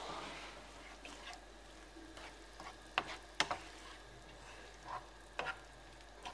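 Wooden spoon stirring chopped tomatoes and green peppers frying in olive oil in a frying pan, the vegetables sizzling quietly. Several sharp knocks and scrapes of the spoon against the pan come in the middle and later part.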